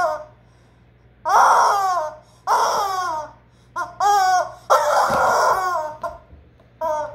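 Yellow rubber screaming-chicken toy squeezed over and over, giving about six loud squawks that fall in pitch, some short and some drawn out for over a second.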